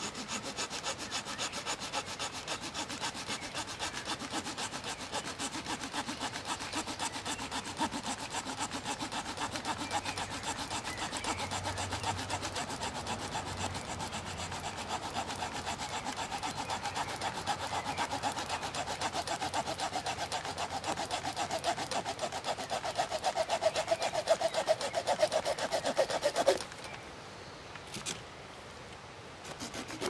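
The wood-saw blade of a Victorinox Huntsman Swiss Army knife cutting a dry branch with quick, even back-and-forth strokes. The sawing grows louder toward the end and stops suddenly about 26 seconds in as the branch is cut through.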